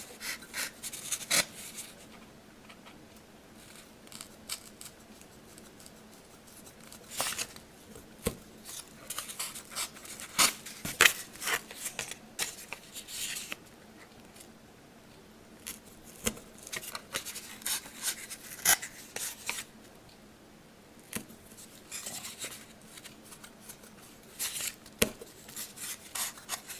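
Small hand pin vise being twisted to drill through balsa wood and a CA hinge: irregular spurts of dry scratching and ticking, separated by quiet pauses.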